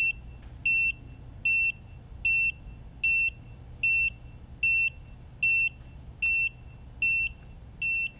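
Quadcopter flight controller's buzzer sounding the low-battery warning: short high beeps repeating about every 0.8 seconds, because the supply voltage is set below the 3.7 V-per-cell warning threshold. A faint steady low hum underneath.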